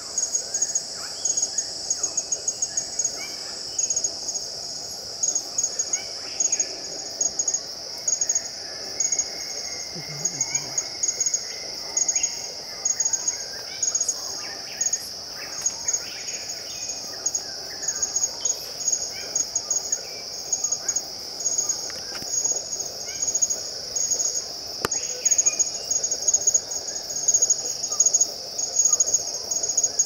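A steady, high insect chorus with a fast run of chirps above it, and short scattered calls from red birds of paradise beneath it.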